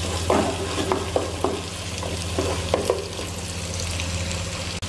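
Onions, ginger-garlic paste and green chillies sizzling in hot oil in a deep pot, stirred with a wooden spatula in a series of short scraping strokes over a steady low hum. This is the sauté stage, cooking off the raw smell.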